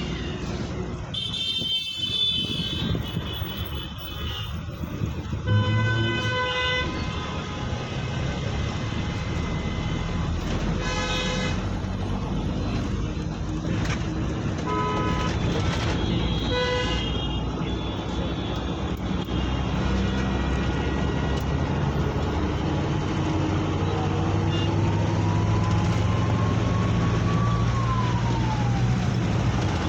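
Road traffic: a steady drone of engines and tyres, cut by several short vehicle horn toots in the first half, with a faint sliding tone near the end.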